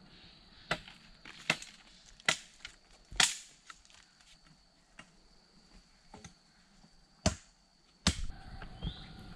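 A digging tool chopping into packed earth: four sharp strikes roughly a second apart, then another a few seconds later. Near the end comes a denser scraping and rustling of loose soil.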